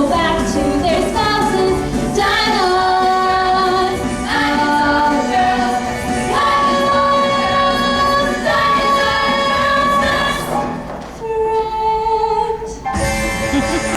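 A show choir singing long held chords as a full ensemble. Near the end it thins to a quieter held note, then the full group comes back in.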